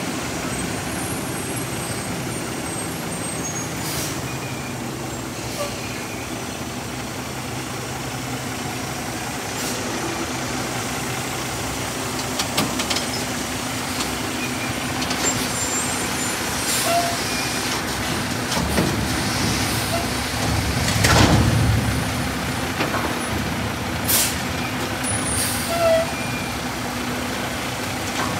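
Mack MRU front-loader garbage truck with a Heil Half Pack body working a steel dumpster. The engine runs steadily under hydraulic load while the container and forks bang and clank several times. About three-quarters of the way in comes the loudest sound, a burst of hissing air lasting about a second.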